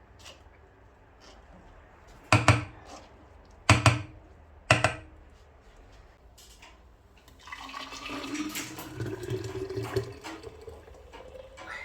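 Three sharp knocks, then liquid is poured into a vessel for about four seconds, its pitch rising as the vessel fills.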